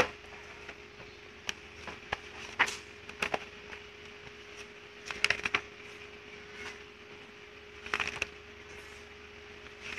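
Paper pages of a printed service manual being turned and handled by hand: a series of short, crisp rustles and flicks, over a faint steady hum.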